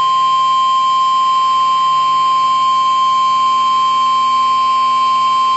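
NOAA Weather Radio warning alarm tone: a single loud, steady tone of about 1050 Hz, unbroken throughout. It is the alert tone that comes just before a broadcast National Weather Service warning.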